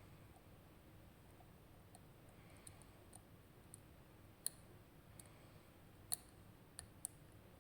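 Faint, scattered metallic clicks of a lock pick working the pin stack inside a RUKO Garant high-security lock cylinder, with a few sharper clicks in the second half.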